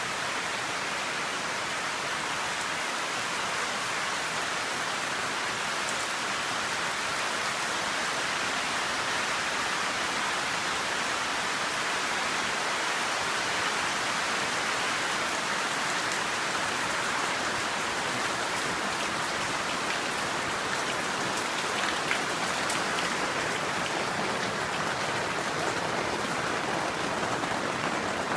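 Steady rain falling, a constant even hiss with a few separate louder drops standing out.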